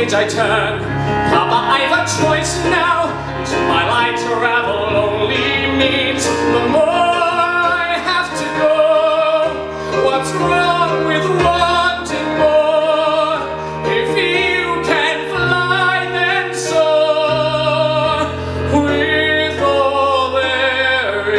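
A man singing a ballad live into a microphone, holding notes with a wavering vibrato, over sustained instrumental accompaniment.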